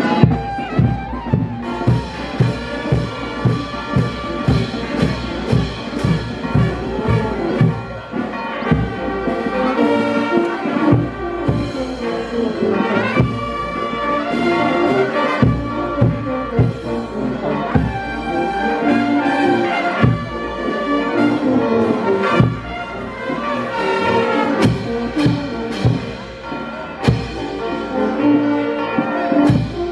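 Brass band playing a tune over a steady drum beat, about two beats a second.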